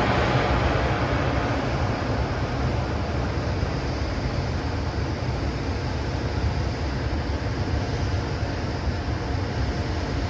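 Cooling blowers of an EH200 'Blue Thunder' electric freight locomotive running steadily: a continuous loud rushing hum, deep and strong at the low end, its hiss easing off a little in the first two seconds.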